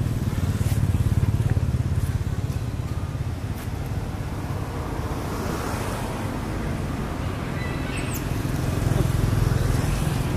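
Low, steady hum of a motor vehicle engine running, swelling about a second in and again near the end.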